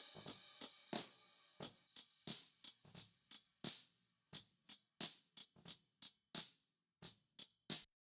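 Drum kit recording played back: a cymbal rings out at the start, then a run of separate drum hits that stops suddenly just before the end.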